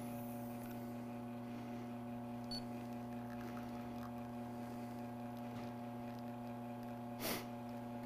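E61-group espresso machine's pump running steadily during a shot extraction, a quiet, even hum. A single short click comes near the end.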